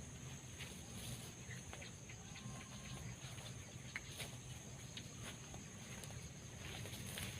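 Faint outdoor ambience of insects chirring in a steady high-pitched drone, with scattered small clicks and a low rumble beneath.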